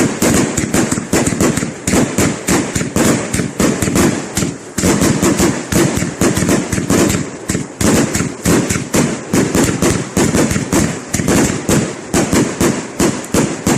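Fireworks going off in a rapid barrage of really loud bangs, several a second, with a brief pause about five seconds in.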